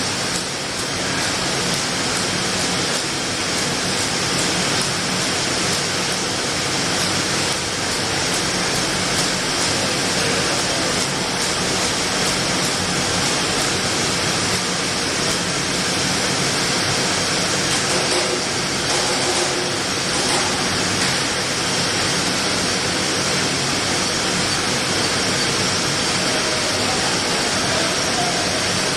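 Steady, even noise of a jar packaging line running, with conveyor and machinery sounding together and no pauses.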